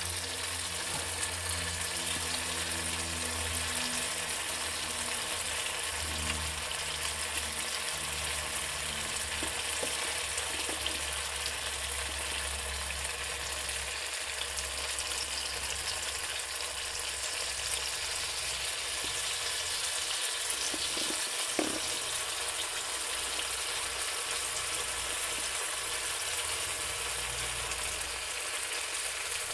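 Balls of onion and green-chilli batter sizzling steadily as they deep-fry in well-heated oil.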